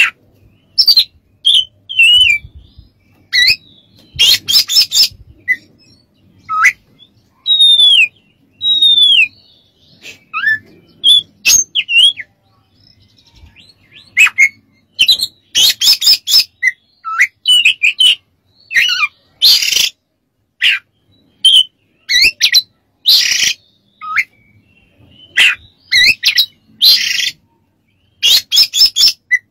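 Oriental magpie-robin singing in a fast, varied stream: short whistled notes, many sliding up or down in pitch, alternate with harsh, scratchy rasping phrases.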